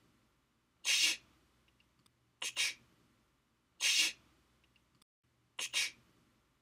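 Short breathy hissing bursts in a repeating rhythm: a quick double puff, then a longer single puff, about every three seconds, over a faint low hum.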